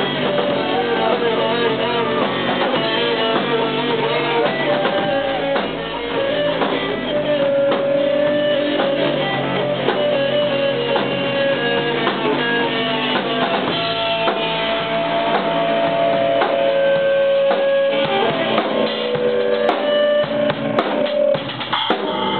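Music played on guitar with a drum kit, with held notes over a steady beat.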